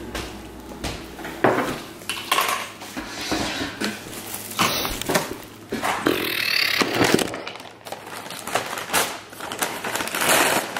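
A paper takeout bag rustling and crinkling as it is handled and unpacked, with irregular knocks and clatter of food containers set down on a wooden table.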